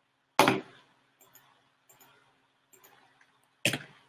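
Two sharp clicks about three seconds apart, with a few faint ticks between, from someone working a computer's mouse and keyboard.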